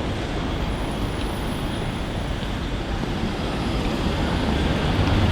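Steady road-traffic noise, with a vehicle's low engine rumble growing louder near the end.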